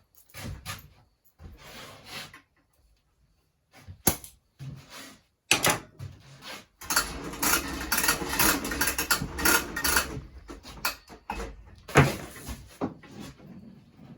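Clattering and knocking of objects being handled on a work surface: scattered clicks and knocks, a denser rattling stretch in the middle, and one sharp knock near the end.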